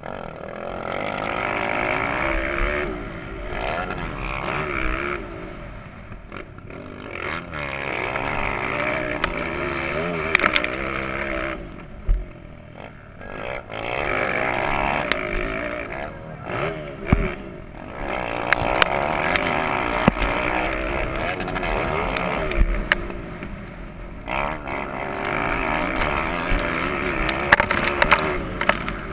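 Motocross bike's engine heard from on board, revving hard and rising in pitch through runs of several seconds, then easing off the throttle about four times before picking up again, with scattered sharp knocks as the bike crosses the track.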